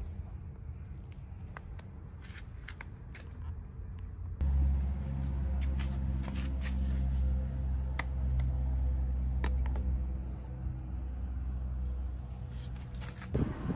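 A low, steady mechanical hum starts suddenly about four seconds in and stops just before the end. Scattered light clicks and taps come through it.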